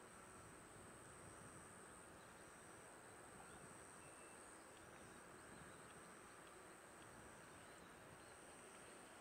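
Near silence: faint outdoor ambience with insects giving a thin, steady high trill and short chirps repeating about once a second.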